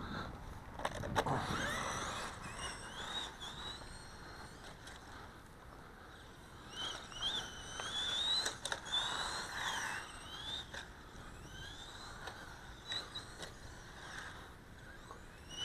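Faint whine of a 1/18-scale short course RC truck's brushed electric motor, rising and dropping in pitch several times as the throttle is worked, over a steady low hiss, with a few light clicks.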